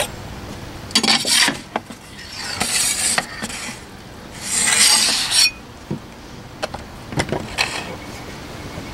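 Wood scraping on the stone of a wood-fired brick oven as the wooden oven door is taken off and loaves are slid in: three rasping scrapes, the third the loudest, then a few light knocks as the door is set back.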